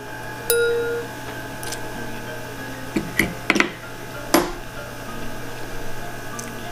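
Close-miked eating sounds: a mouthful of pancit canton noodles being chewed, with a handful of sharp wet mouth clicks and smacks, most of them near the middle.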